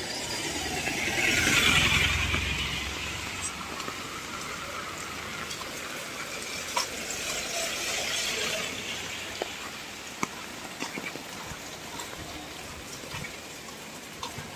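Rain falling steadily, with scattered drips. A louder rushing swell rises and fades about a second in, and a softer one comes around eight seconds.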